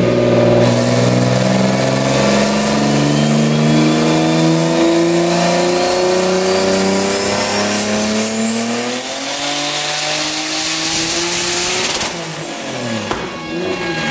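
Turbocharged Nissan Maxima VQ35 V6 making a full-throttle dyno pull. Engine pitch climbs steadily for about twelve seconds, with a high turbo whine rising along with it. About twelve seconds in, the throttle closes and the revs fall away.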